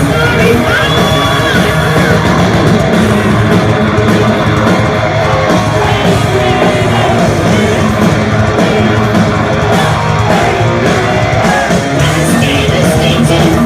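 Heavy metal band playing live and loud, with distorted electric guitars and drums. Sung vocal lines come in near the start and again near the end.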